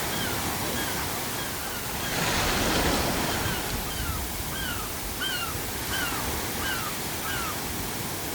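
Ocean waves washing over a steady bed of pink noise, with a wave surging about two seconds in. Gulls call over it in a run of short, falling cries, louder in the second half.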